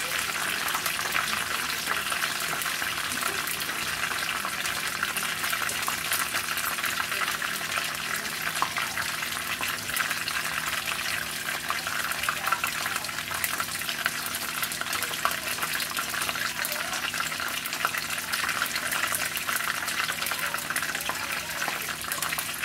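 Chicken pieces shallow-frying in hot oil in a wok: a steady sizzle with dense, fine crackling.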